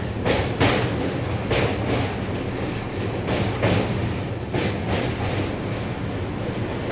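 Moving passenger train with a steady rumble. Its wheels clack over the rail joints in quick pairs, about one pair a second.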